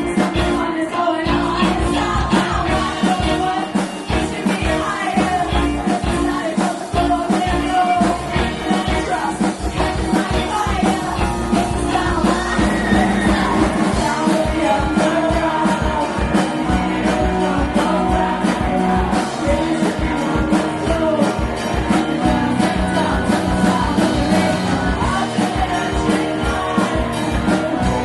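A live band playing a rock-styled pop song: a sung vocal line over a full backing with a steady drum beat.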